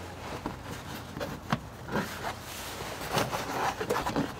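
Light handling sounds: a few small taps and rustling as a thin cable is pressed and worked along a wooden beam.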